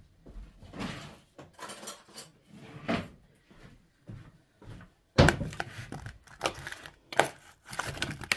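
Scattered household knocks and rustles, then a sudden loud knock about five seconds in, followed by a metal spoon clattering and scraping against a plastic bowl of cut zucchini pieces.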